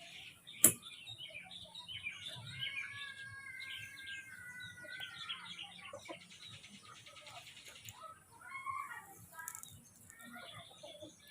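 Busy high-pitched chirping and squeaking animal calls, with one long held whistling call in the middle and a single sharp click about a second in.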